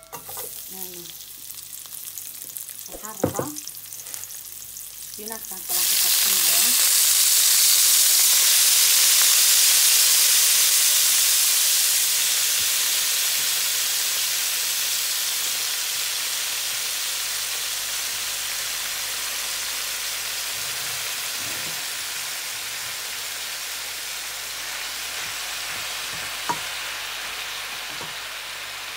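Spinach leaves tipped into hot oil in a frying pan: a sudden loud sizzle about six seconds in that slowly dies down. Before it, quieter frying and a single knock against the pan.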